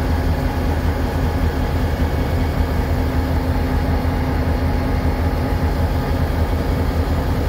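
EMD SD38-2 locomotive's 16-cylinder 645 diesel engine running steadily, a deep even drone with a low hum.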